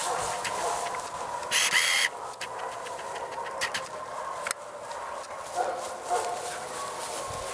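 A dog moving through tall grass, with rustling and scattered clicks, and one short, loud animal call about one and a half seconds in.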